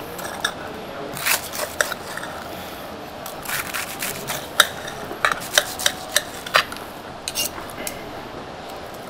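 Knife and carving fork cutting through the crisp fried crust of a deboned stuffed duck: scattered crunches and sharp clicks of steel on steel and on the serving platter.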